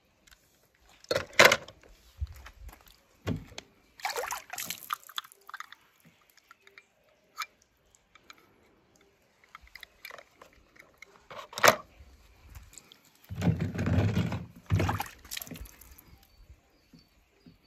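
Water sloshing and splashing in a shallow play tray in separate bursts, the longest about 13 to 15 seconds in, with a couple of sharp knocks between them.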